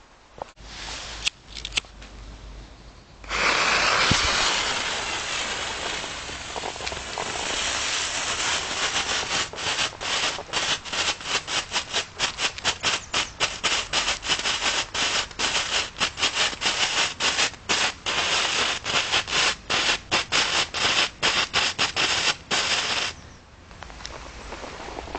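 A small consumer firework fountain ignites about three seconds in and sprays with a loud hiss. From about eight seconds on, rapid crackling pops, several a second, ride on the hiss. It burns out suddenly a couple of seconds before the end.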